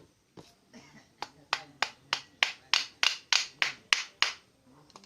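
A rapid, even run of sharp taps, about three a second and about a dozen in all, starting about a second in and stopping a little after four seconds.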